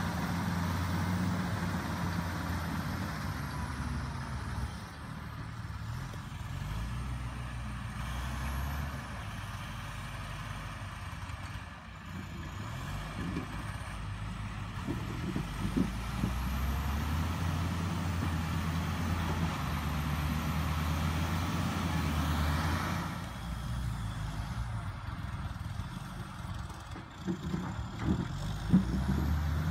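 John Deere 670CH motor grader's diesel engine running under load while grading dirt, its low note swelling and easing as the machine works. A few sharp knocks near the end.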